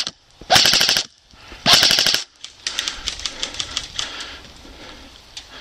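Airsoft guns firing full-auto: two loud, rapid bursts of about half a second each, followed by quieter, scattered rapid fire from farther off.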